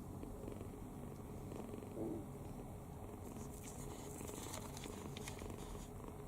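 Sleeping kitten snoring, a steady low rumble, with one brief louder swell about two seconds in.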